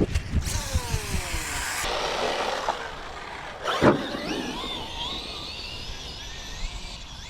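Brushless electric motor of an RC short-course truck whining as it drives over grass: the whine falls in pitch in the first two seconds, there is a sharp knock about four seconds in, then a fainter whine wavers up and down with the throttle.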